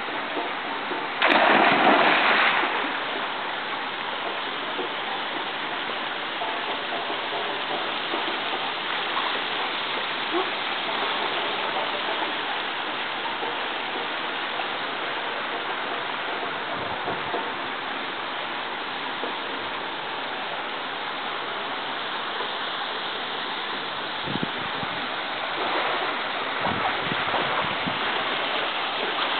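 A person jumping into a swimming pool, a loud splash about a second in. Then steady rushing water, the infinity pool's overflow spilling over its edge.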